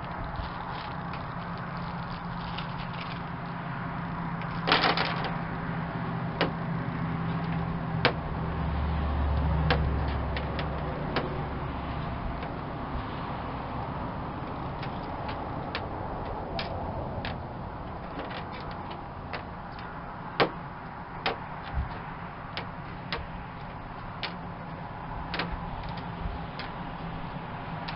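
Irregular clicks and taps of small winch mounting hardware and packaging being handled on a Jeep's steel hood, over a steady low wind rumble on the microphone that swells for a few seconds near the middle.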